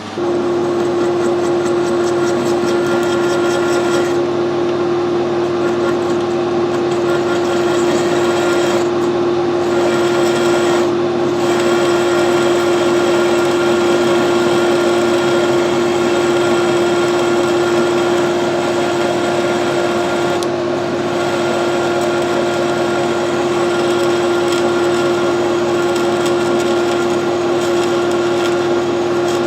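Metal lathe running with a steady hum, turning a high-tensile steel repair stud down to 10 mm thread size.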